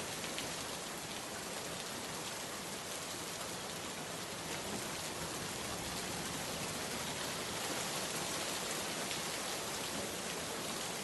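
Steady rain hiss with scattered faint drop ticks, even throughout.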